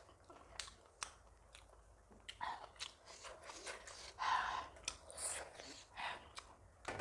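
A person chewing food close to the microphone: irregular wet mouth clicks and smacks, with a few louder, noisier chews in the middle.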